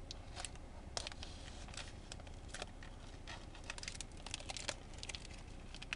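Plastic anti-static bag being torn and peeled open by hand, crinkling with irregular sharp crackles and clicks, in small clusters.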